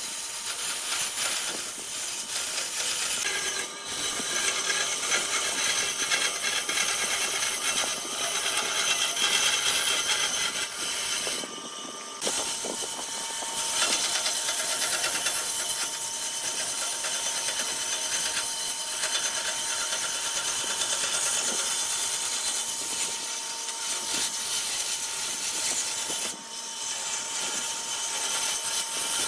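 Bandsaw cutting a curve through a slatted pallet-wood panel: a steady whine of the running saw under the rasping of the blade in the wood. The cutting noise drops briefly a few times.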